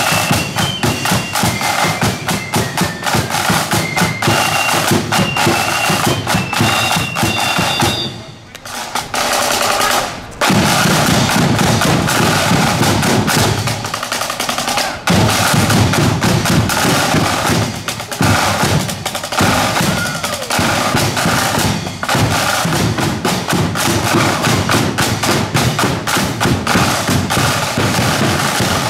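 Marching band on parade: a high melody over snare and bass drums for about the first eight seconds. After a brief drop, the drums carry on alone with a steady marching beat.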